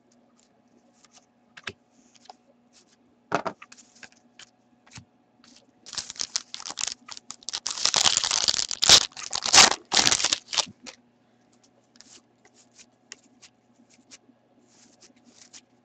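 Foil wrapper of a hockey card pack being torn open and crinkled for about four seconds in the middle. Before and after it come light clicks and flicks of the cards being handled.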